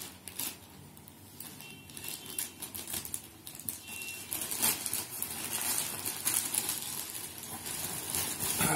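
Plastic courier mailer bag crinkling and rustling in many small crackles as it is cut open with a knife and handled, growing louder near the end as the bag is pulled open.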